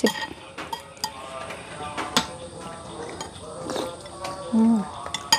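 Metal spoons clinking and scraping against bowls as several people eat, in scattered single clicks. Low murmured voices run underneath, with a short held voice sound about four and a half seconds in that is the loudest thing.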